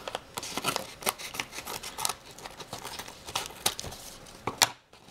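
Scissors snipping through a mailing envelope: a quick, irregular run of sharp cuts that stops briefly near the end.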